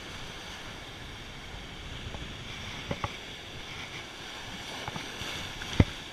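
Surf washing and breaking against the jetty's stone blocks, with wind on the microphone. A few small clicks come about three seconds in, and a single sharp knock near the end.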